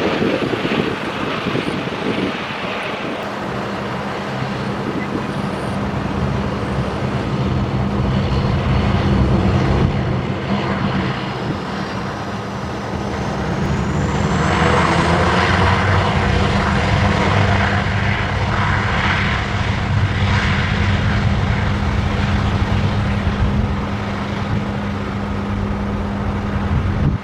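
Jet airliner on its landing approach, its engines giving a steady low hum with rushing noise. A thin high whine rises in pitch about halfway through.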